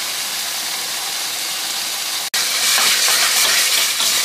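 Ground dried-chili spice paste frying in hot oil in a pan, a steady sizzling hiss. About two seconds in there is an abrupt break, and the sizzle comes back louder with crackling.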